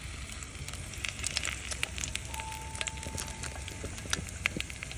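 Rice-paper wraps frying in oil in a pan: a steady sizzle with frequent sharp crackles and pops.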